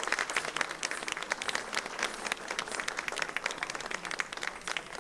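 Applause from a small audience, a dense patter of many individual hand claps.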